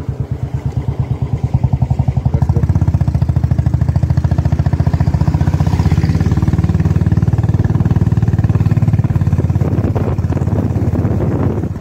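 Royal Enfield Bullet's single-cylinder engine running under way, its exhaust beat a steady, even thumping, heard from the pillion seat.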